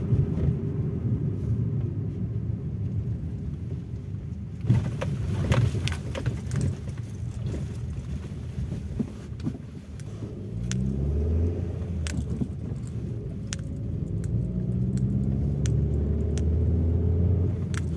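Vehicle engine and road noise heard from inside the cabin while driving. Light rattling and clicking comes through between about five and seven seconds in. The engine pitch rises as it picks up speed about ten seconds in, and rises again later.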